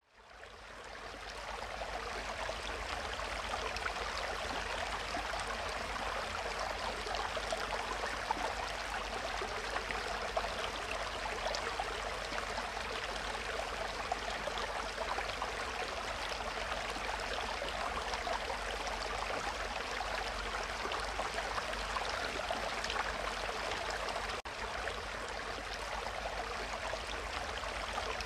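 Steady bubbling and water noise from an aquarium's aeration, a stream of air bubbles rising through the tank water. It fades in over the first second or so, then holds even.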